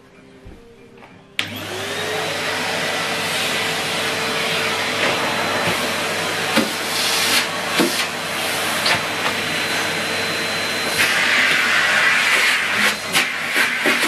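Numatic Henry 160 canister vacuum cleaner switched on about a second and a half in, its motor spinning up with a rising whine that levels off, then running steadily with a rush of suction as the floor tool is pushed over carpet. A few sharp ticks sound now and then, and the rush of air gets louder and brighter from about eleven seconds in.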